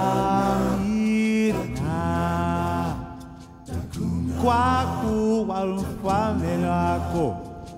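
Music: a voice singing long, held notes with wavering slides between them, over a sustained low drone.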